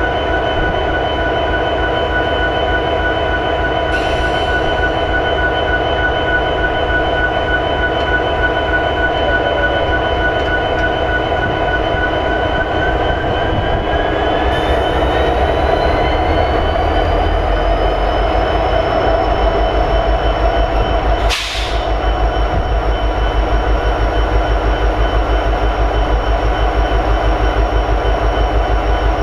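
EMD 16-710 diesel prime mover of an SD70ACe locomotive idling steadily. About halfway through, a whine rises in pitch and then holds, and the low engine pulsing grows heavier, as the engine steps up from low idle toward high idle. There is one sharp click about 21 seconds in.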